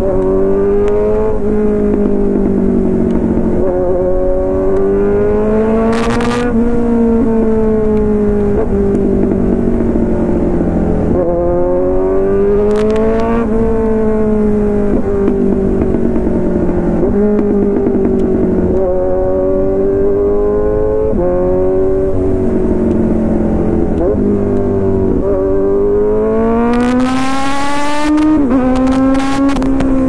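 Kawasaki Z900's inline-four engine through an Arrow full-system exhaust, heard from the rider's seat while riding. The engine note climbs and falls back several times. Short sharp bursts of noise come about six, thirteen and twenty-seven seconds in.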